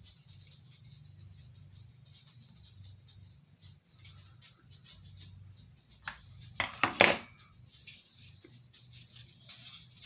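Hot glue gun set down on a worktable: a short clatter of several hard knocks about six to seven seconds in. Before and after it come faint handling clicks of plastic parts over a low steady hum.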